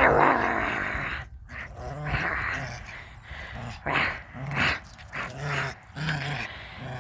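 A small puppy play-growling in a series of short rough growls, loudest at the start.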